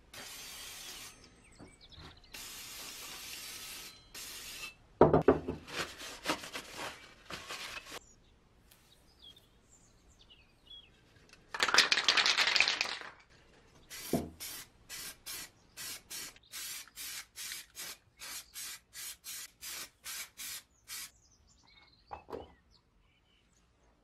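Degreaser sprayed in three hissing bursts, followed by a few seconds of knocks and handling. Later a spray can of primer hisses in one long blast, then in a string of short, even bursts at about two a second.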